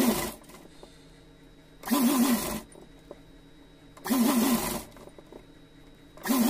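Sewing machine stitching gold lace piping around a curved fabric edge in short runs: four brief spurts of a few stitches each, about two seconds apart, with quiet pauses between as the fabric is turned.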